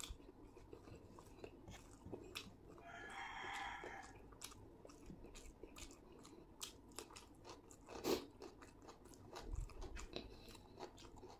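Close-up eating sounds: a person chewing mouthfuls of chicken biryani, with many small wet mouth clicks and one louder click about eight seconds in.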